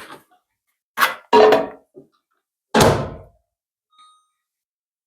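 Knocks and a heavy thunk as a bowl goes into a microwave oven and its door is shut, then one short, faint electronic beep from the microwave.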